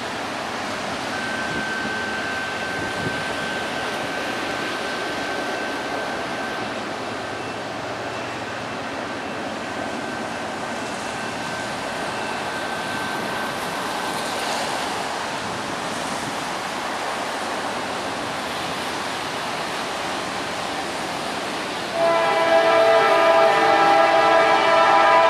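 A steady rushing background noise, then about 22 seconds in a locomotive horn starts sounding loudly: a chord of several notes held steady.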